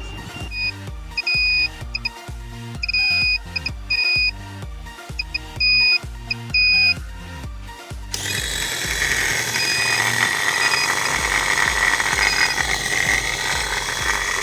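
An electronic buzzer beeping a high tone in short bursts of uneven length, over background music. This is the radar's proximity alarm, which sounds when an object is inside the set safe distance. About eight seconds in, the music turns bright and noisy and the beeps grow faint under it.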